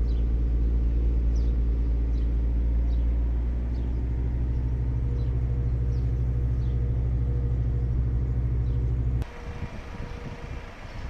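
Fiat Ducato refrigerated van running steadily, a low even hum. About nine seconds in it stops abruptly, leaving only a faint uneven rumble.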